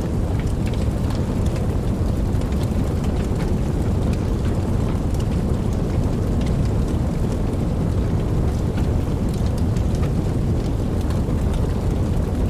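Steady rain falling, with many individual drops ticking sharply over a constant low rumble.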